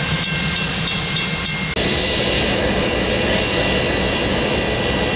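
Diesel-electric locomotive 4807 running past a level crossing while the crossing's warning bell rings in a quick, even rhythm. Less than two seconds in it cuts to steam locomotive 1210 standing at a platform, hissing steam steadily with a thin high whistling note in it.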